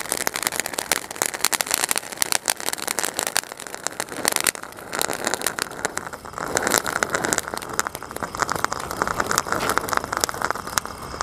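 Standard 'The Great Splendor' ground fountain firework spraying sparks: a steady hiss with dense, rapid crackling throughout, the hiss growing fuller about six seconds in.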